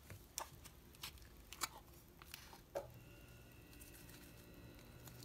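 Faint clicks and knocks of a spice container being handled and shaken over a plastic bowl, about five small taps in the first three seconds. A faint low hum comes in about halfway through.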